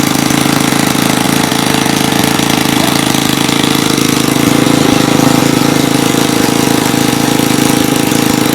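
Small engine running steadily at a constant speed, with an even hum and a rapid firing beat.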